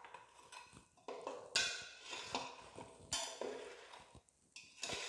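Steel spatula scraping and clinking against a stainless steel bowl while fried petha strips are stirred through sugar syrup, in irregular strokes with two louder ringing clanks, about one and a half and three seconds in.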